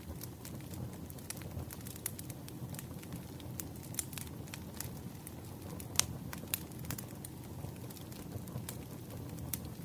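Wood fire burning with a steady low rumble of flames and frequent irregular crackles and pops, the sharpest pop about six seconds in.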